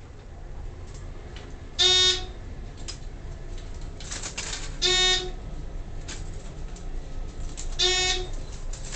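ThyssenKrupp elevator car sounding a short electronic beep three times, about three seconds apart, over the steady low hum of the moving car.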